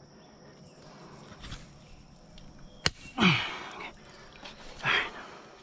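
Fishing pliers working a hook free from a small muskie's mouth inside a landing net: one sharp click about three seconds in, then two short noisy bursts a couple of seconds apart.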